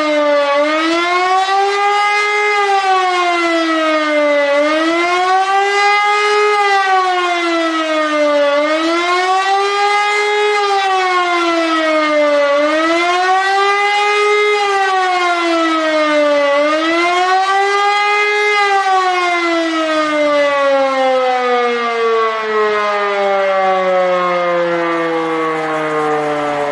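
Electromechanical E57 air-raid siren wailing, its pitch rising and falling about every four seconds in the German public warning signal. After the fifth rise, about eighteen seconds in, the pitch falls steadily as the siren winds down.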